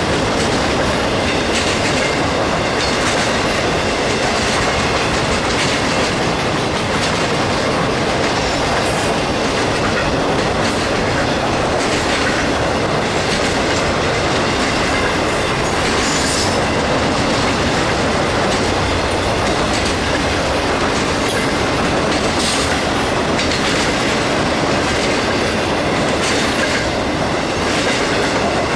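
Cars of a westbound BNSF train rolling steadily past on the main line, with a continuous rumble and clatter of wheels over the rails. A few faint, brief wheel squeals come through.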